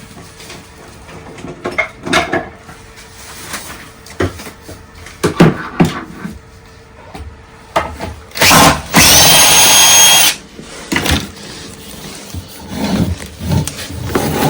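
Cordless drill-driver running on a screw in a timber support, in a short burst and then a steady run of about a second and a half that is the loudest sound. Around it come scattered knocks and clatter of the wood being handled.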